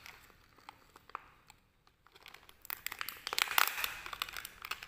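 Hands tearing open the plastic wrapper of a packaged snack cake: a few scattered crinkles at first, then a dense run of crinkling and tearing from about halfway through.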